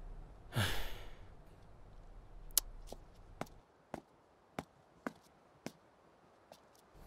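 A person lets out one heavy, frustrated sigh about half a second in. A series of light, sharp taps follows from about two and a half seconds in, roughly two a second.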